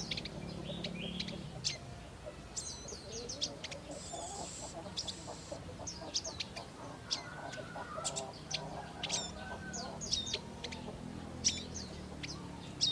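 Prinias (prenjak) calling with many short, sharp chirps repeated throughout, over a steady low hum, with a softer lower twittering in the middle.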